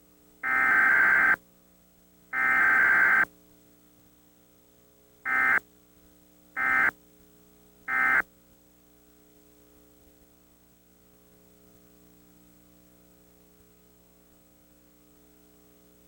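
Emergency Alert System digital data tones: two harsh, buzzing header bursts about a second long, then three short end-of-message bursts about a second and a quarter apart. A faint hum lies between the bursts.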